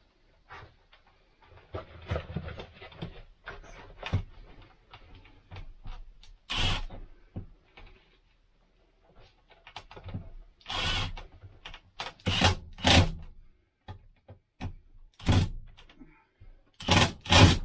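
Cordless screw gun driving screws into an RV air-conditioner mounting piece in several short bursts, amid knocks and clatter of handling the parts.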